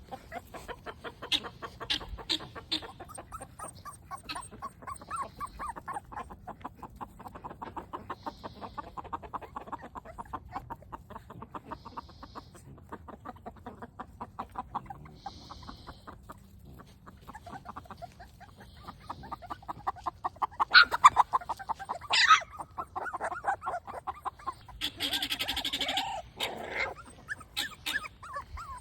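Chickens clucking continuously, with a few louder, sharper calls in the last third.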